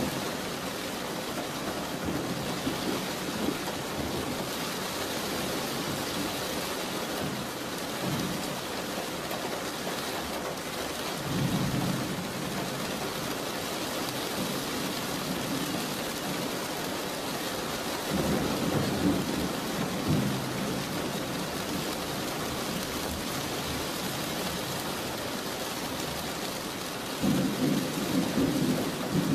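Steady rain with thunder rumbling three times: about a third of the way in, again past the middle, and near the end.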